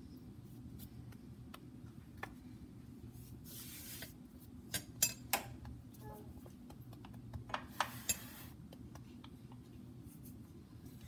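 Hands shaping a ball of dough on a floured granite countertop: soft rubbing and rustling with a few sharp clicks and taps, the loudest near the middle, over a steady low hum.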